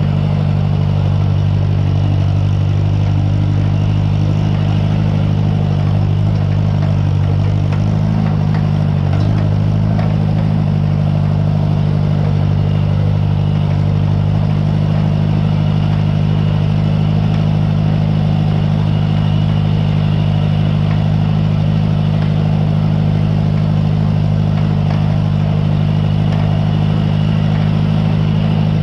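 Farmall 140 tractor engine running steadily, with a slight shift in pitch about eight seconds in.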